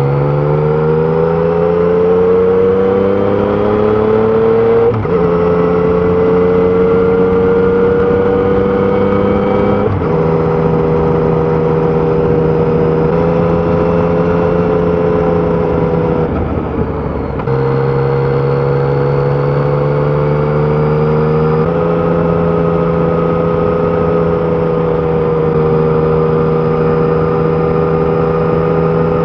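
Yamaha Tracer 900's 847 cc inline-three engine with stock exhaust, running hard under load. It climbs in pitch over the first few seconds, then holds a steady high drone with sudden small pitch steps every few seconds, and briefly lets off about two-thirds of the way through.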